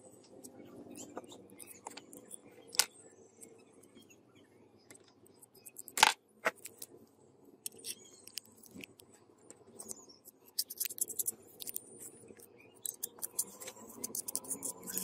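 Workbench handling sounds of a metal spatula working glue paste in a plastic tray and onto a knife's steel tang: scattered light clicks and scrapes, a loud knock about six seconds in, and a quick run of light ticks and taps in the last few seconds.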